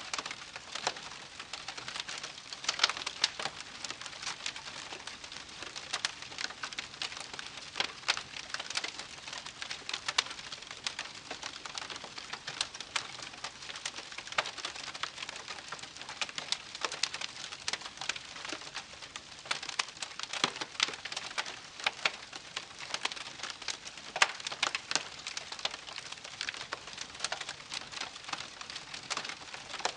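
Wood campfire crackling, with a steady hiss and a dense, irregular run of sharp pops and snaps, some louder than the rest.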